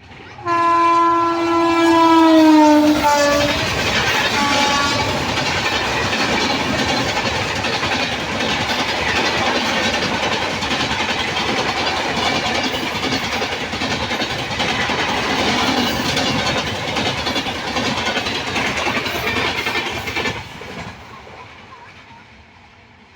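An Indian Railways train passing at speed. The locomotive horn sounds for about three seconds, dropping a little in pitch as it goes by, with a brief fainter blast after it. Then the wheels clatter and rush over the rails for about sixteen seconds before the noise falls away quickly.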